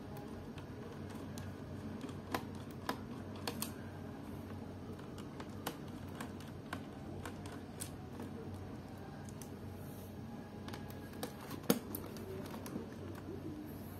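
Scattered light plastic clicks and taps as a Samsung NP300E4X laptop's plastic bottom cover is pried and unclipped by hand and screwdriver, with one sharper snap near the end, over a low steady hum.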